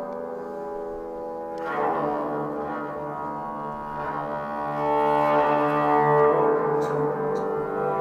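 Yaybahar bowed, playing low, sustained droning tones that overlap and ring on, with a brass-like tone. A new bowed note enters a little under two seconds in, and the sound swells louder in the second half.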